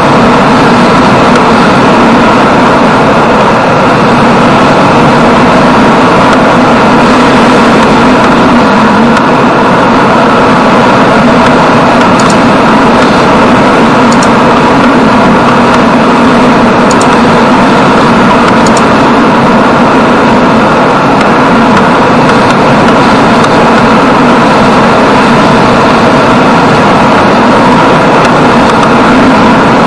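Yamaha Jupiter MX 135 underbone motorcycle's engine running steadily at cruising speed, heard from the rider's position with a constant rush of wind and road noise.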